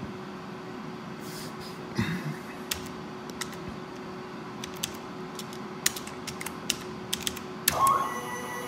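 Computer keyboard keys clicking in scattered presses over a steady hum. Near the end the Sherline CNC mill's stepper motor starts up with a short rising whine that settles into a steady whine.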